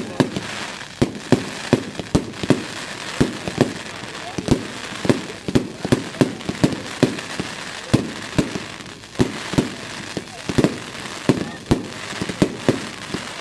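Wolff Jackhammer firework going off: a long, irregular string of sharp bangs, about two a second.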